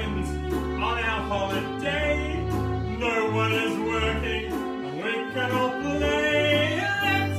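A man singing with vibrato, accompanied by a small acoustic band of fiddle, banjo and upright bass.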